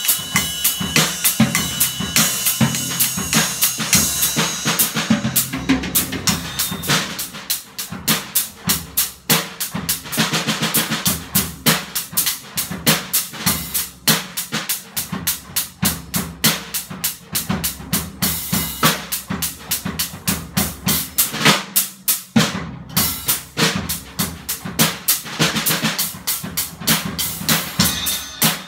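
Pearl Export Select drum kit fitted with Remo Silent Stroke mesh heads and Zildjian Low Volume cymbals, played in a fast warm-up: rapid stick strokes on snare and toms with bass drum and cymbal hits. There is a brief break about three-quarters of the way through.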